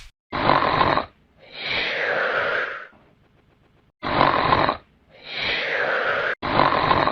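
Snoring sound effect: a harsh snore drawn in, then a longer breath out that falls in pitch, repeated twice.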